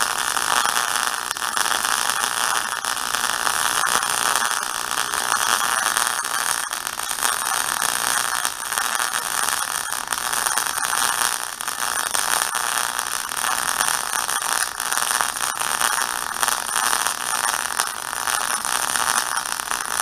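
MIG welding arc crackling steadily while a bead is run on 3/16-inch steel plate with a Chicago Electric MIG 170 fitted with an HTP torch. The wire is feeding smoothly.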